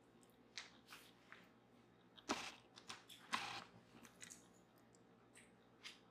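Faint handling noises of yarn and a knitting loom being worked by hand: a few scattered soft clicks and rustles, the clearest two a little after two and three seconds in.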